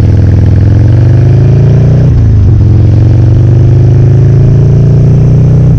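2009 Buell Lightning XB12Scg's air-cooled V-twin, through an aftermarket Hawk exhaust, pulling hard under acceleration and very loud. The engine note climbs, drops sharply about two seconds in as the bike shifts up a gear, climbs again, then drops once more near the end.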